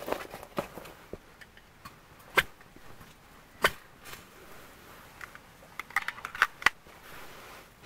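Small fire of wood shavings catching light and crackling, with scattered sharp pops every second or so and a quick run of pops near the end.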